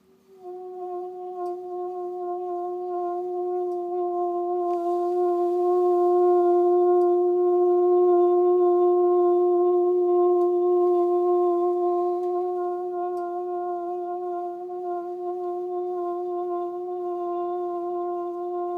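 Toyotomi LC-32D kerosene fan heater giving a surprisingly loud, steady humming tone with overtones. It sets in about half a second in and holds one pitch. The noise seems to come from combustion starved of air: a clogged fine mesh on the rear filter, low oxygen in the room, and a low flame setting.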